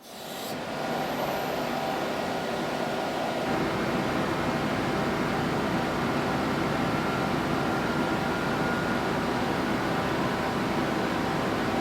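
Steady mechanical hum and whir of running machinery in an industrial machine shop, with faint held tones over an even noise. It fades in at the start and then stays constant.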